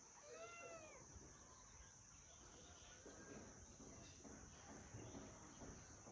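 Faint animal cries: two or three short calls that rise and fall in pitch within the first second, then near silence with a faint background hiss.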